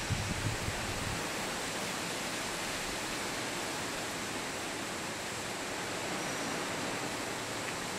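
A steady, even outdoor hiss, with a few low thumps in the first second.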